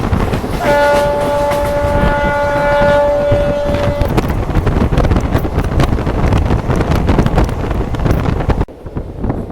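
Express passenger train running at speed, with a steady rattle and clatter. Its horn sounds one long, steady blast, starting just under a second in and lasting about three seconds. The running noise drops away abruptly near the end.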